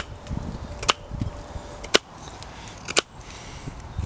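Fixed-blade knife shaving the end of a wooden peg braced on a chopping block: downward push cuts through the wood, each stroke ending in a sharp click about once a second.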